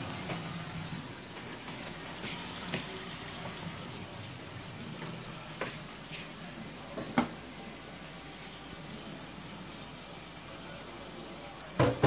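Kitchen tap running steadily into a sink while dishes are washed, with a few sharp clinks and a louder knock near the end.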